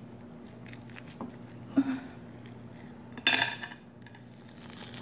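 Hands working a cut ham and the plastic wrapping found inside it: a few small clicks, a short loud crinkle about three seconds in, and a rustle building near the end, over a low steady hum.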